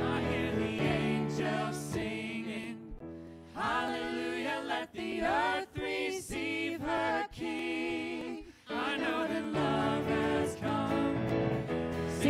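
Church worship band performing a Christmas song: several voices singing together over keyboard and acoustic guitar. The low accompaniment drops back about two seconds in, leaving the voices more exposed, and the full band comes back in about nine seconds in.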